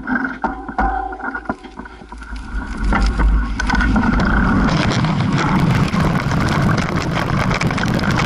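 Mountain bike on a dirt trail: scattered clicks and knocks while it rolls off slowly, then from about four seconds in a loud, steady rush of wind over the bike-mounted camera's microphone with tyre and frame rattle as it picks up speed.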